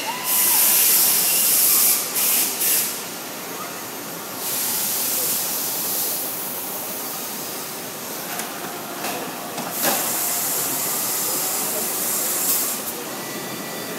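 SOCO SB 80 all-electric CNC tube bending machine running through a bend cycle, with several bursts of loud hissing. The longest burst, about two seconds, comes at the start together with a brief rising whine, and shorter bursts follow around three, ten and twelve seconds in.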